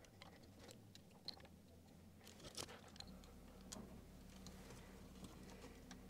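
Near silence, with faint, scattered small clicks from wires and a small switch being handled.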